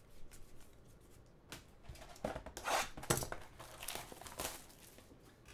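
Plastic shrink wrap crinkling and tearing as it is pulled off a trading-card hobby box, in irregular rustling bursts that are busiest in the middle.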